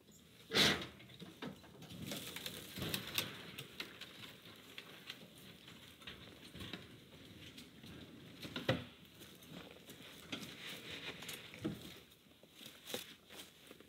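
IBC tote, a plastic tank in a steel cage, being tipped over and rolled upright on the ground by hand: repeated knocks and rattles of the cage and tank. There is a loud thump about half a second in and another about 9 seconds in.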